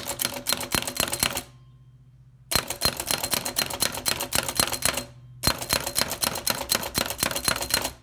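1908 Hammond No. 2 typewriter being typed on at speed: rapid keystrokes, each one a hammer hitting the type shuttle from behind. The clatter comes in three quick runs, broken by a short pause about a second and a half in and a shorter one about five seconds in.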